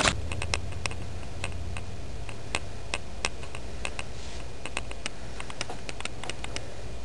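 A steady low hum with faint, irregular clicks scattered through it, and no voices or music.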